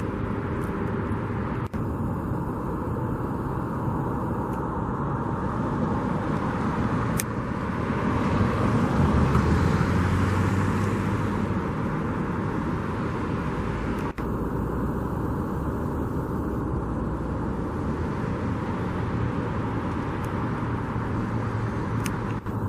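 Outdoor road traffic noise as a steady hum, with one vehicle passing and growing louder about eight to twelve seconds in.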